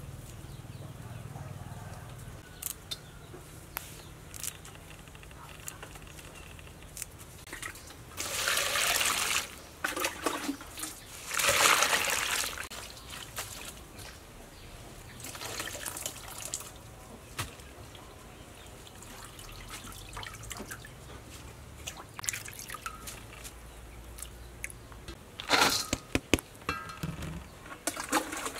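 Water splashing and swishing as hands wash sesbania flowers in a stainless steel bowl. It comes in a few short bursts, with small clicks and drips in between.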